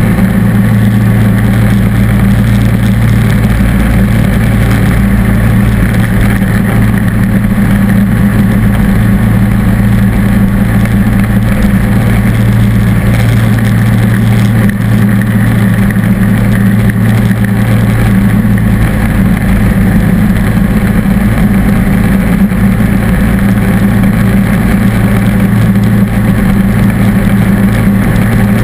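John Deere D140 lawn tractor's engine running steadily, heard close up, driving a front-mounted snowblower that is throwing snow out of its chute.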